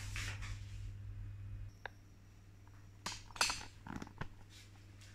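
Faint handling noise from a handheld camera being moved about a kitchen counter. A low steady hum stops about a second and a half in. Then come a single sharp click and a cluster of soft knocks and rustles.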